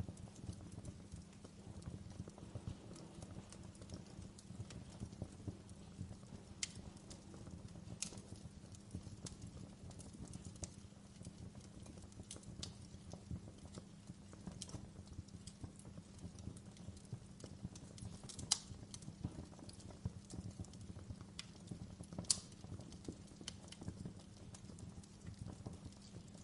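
Wood fire in a fireplace crackling: a steady low rumble of flames under a constant run of irregular small pops and snaps, with a couple of much louder pops in the second half.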